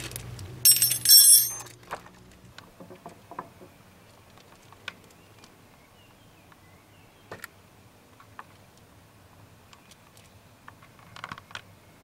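Metal ratchet wrench clinking, a short bright metallic ring about a second in, followed by scattered faint taps and clicks.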